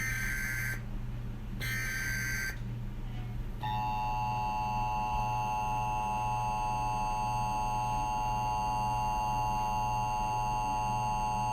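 Emergency Alert System tones: two short, harsh data bursts of the SAME header in the first couple of seconds, then, after a brief pause, the steady dual-tone EAS attention signal held for about eight seconds. A low steady hum runs underneath.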